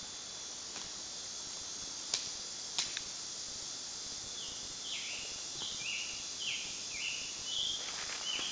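Summer woodland sound: a steady, high insect drone, with a bird repeating a short falling call about eight times in the second half. Two sharp clicks come about two and three seconds in.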